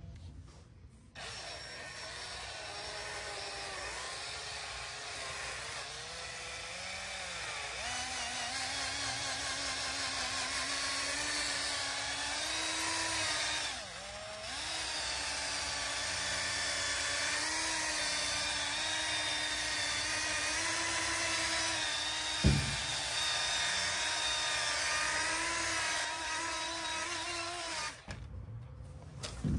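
Small cordless handheld polisher with a foam pad running against painted sheet metal, cutting with coarse compound after 3000-grit wet sanding. The motor's whine wavers in pitch as speed and pressure change. It starts about a second in, dips briefly near the middle, and has one sharp knock about three-quarters through.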